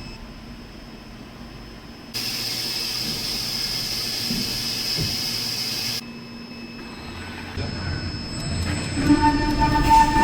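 Ultra-high-speed gantry milling machine cutting aluminum: a steady hiss starts abruptly about two seconds in and cuts off sharply about four seconds later. Near the end the high-pitched milling tone of the spindle at about 18,000 rpm comes back in.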